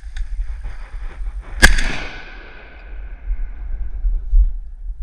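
A shotgun fired at ducks, one sharp blast about a second and a half in that echoes and fades over about a second; a second blast goes off at the very end.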